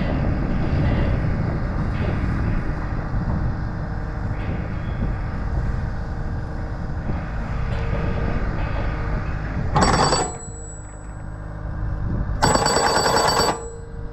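Engine running steadily under a hydraulic post pounder, with two short bursts of rapid hammering on a wooden fence post: one about ten seconds in, and a longer one of about a second a couple of seconds later.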